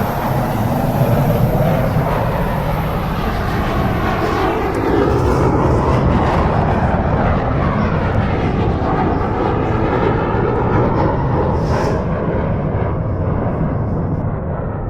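Loud, steady engine noise whose tone shifts slowly up and down.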